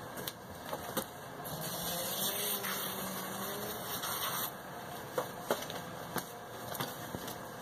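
Liquid being sprayed onto the rear tire of a 50cc ATV to make it spin and smoke in a burnout: a hiss of about three seconds starting a second and a half in, with a few light knocks.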